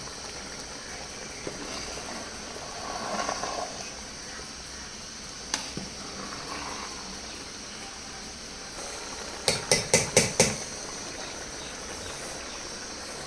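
Rice boiling in masala water in a large aluminium pot, with a metal ladle stirring and scraping through it. About ten seconds in, a quick run of five or six sharp metallic taps as the ladle is knocked against the pot.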